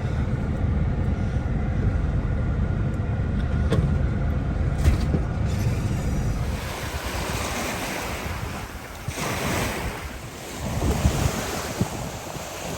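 Wind buffeting the microphone over choppy water, with waves washing and surging in gusts; the low rumble is heaviest in the first half, and the wash rises and falls through the second half.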